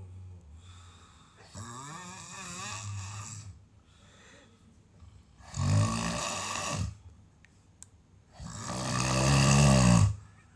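A sleeper snoring: three long snores a few seconds apart, the last the loudest.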